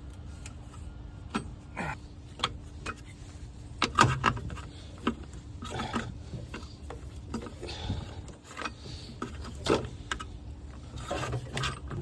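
Scattered metal clicks, knocks and scrapes of hand work as the old drive belt is worked off the Humvee engine's tensioner and pulleys, the loudest knocks about four seconds in and near ten seconds. A steady low hum runs underneath.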